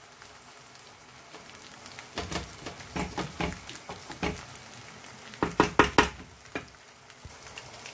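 Wooden spoon knocking and scraping against a metal pot while spaghetti with vegetables is tossed. The knocks come irregularly, and a quick run of sharper knocks about five and a half seconds in is the loudest.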